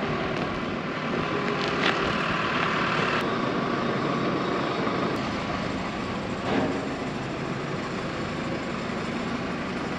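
Engine of the machine towing a large air seeder cart, running steadily at low speed, with the cart rumbling as it rolls. There is a brief knock about two seconds in and another a little past the middle.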